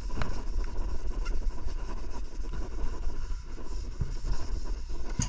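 Hand wet-sanding of a motorcycle fender's clear coat with 1000-grit sandpaper: a steady gritty scrubbing on the wet paint, over a low rumble, with a sharp tick near the end.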